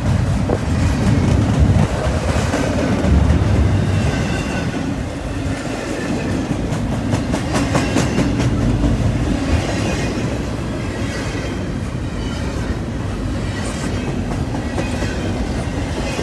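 Double-stack intermodal container train's well cars rolling past at close range, a steady rumble of steel wheels on rail. A run of sharp clicks from the wheels over rail joints comes about halfway through.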